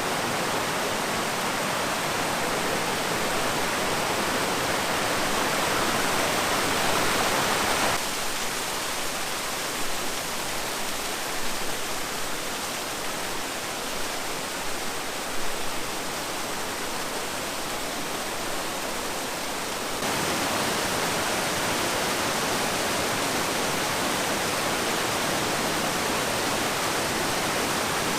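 Waterfalls and cascades giving a steady, loud rushing of falling water. The sound changes abruptly twice, a little softer in the middle stretch, as the recording cuts between different falls.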